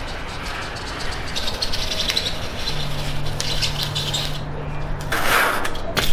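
Aluminium foil tape crinkling and crackling as it is handled and torn, with a louder rasping burst about five seconds in.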